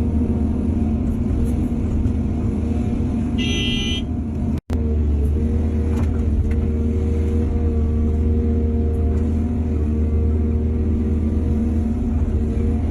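Heavy diesel earthmoving machinery, an excavator or dump truck engine, running steadily at a constant note. A short high-pitched horn or beep sounds about three and a half seconds in, followed by a split-second dropout.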